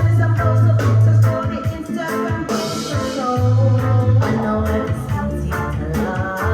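Song with singing, a heavy bass line and a steady beat, played on a Panasonic SC-UX100 mini stereo system. The bass drops out for about a second midway.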